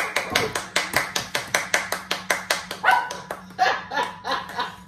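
Several people clapping their hands fast and evenly, about five claps a second, with high voices calling out over the clapping.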